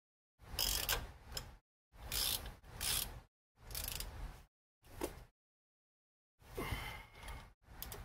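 Socket ratchet clicking in about six short runs with pauses between, as bolts on a car's brake assembly are turned.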